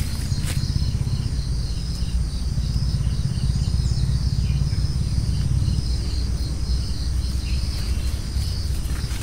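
Outdoor field ambience: steady high-pitched chirring of insects with faint repeated short chirps, over a heavy, uneven low rumble.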